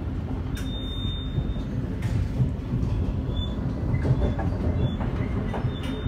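Passenger train running, heard from inside the carriage: a steady low rumble with a few sharp clicks and knocks from the wheels and carriage at irregular intervals.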